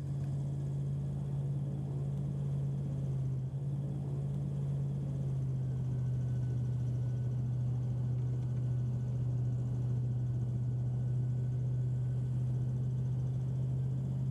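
Airboat engine running at a steady speed, a low unchanging drone.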